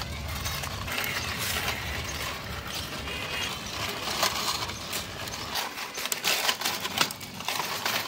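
A plastic toy auto rickshaw and its packaging being handled: a run of small clicks and rustles, a little lighter after about five and a half seconds.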